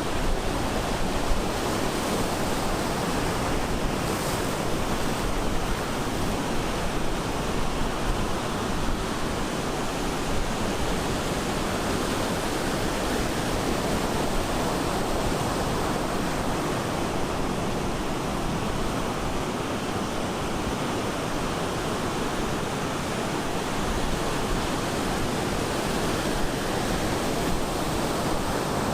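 Ocean surf breaking on the shore, a steady dense wash of waves without distinct individual crashes.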